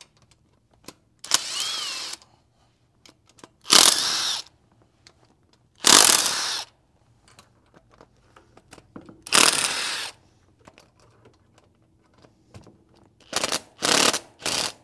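Cordless impact wrench spinning out already-loosened cylinder head bolts on a small-block V8, in short bursts of under a second. There are four well-spaced bursts, then three quick ones near the end.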